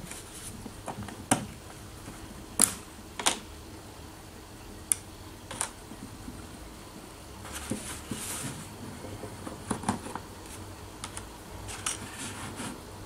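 Several sharp metallic clicks and taps, with a little soft rustling, as a shotgun trigger group is handled and a hex key pushes out the safety detent retaining pin and is laid down. A steady low hum runs beneath.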